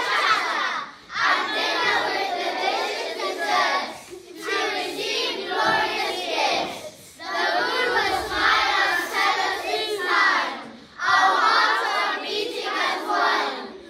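A class of primary-school children singing a song together, in phrases broken by short pauses every few seconds.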